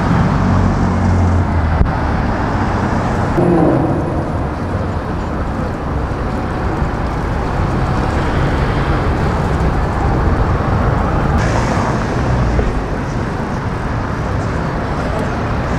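City street traffic: cars driving past with engines running, a steady wash of road noise.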